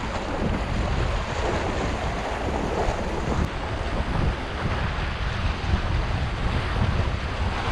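Strong wind buffeting the microphone with a low rumble, over choppy sea waves washing and splashing against a rocky shore. The wind and waves are rising as the weather turns.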